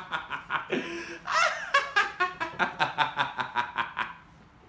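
A man laughing hard in quick, evenly spaced bursts, with a wheezing, breathy intake about a second in. The laughter dies away about four seconds in.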